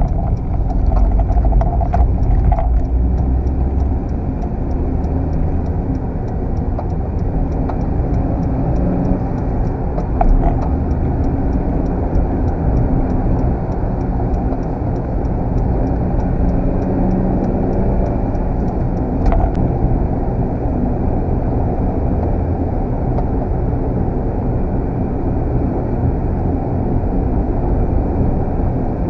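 Car driving, heard from inside the cabin: a steady low rumble of engine and tyre noise, with the engine pitch rising a little around the middle as the car picks up speed. A couple of faint clicks stand out.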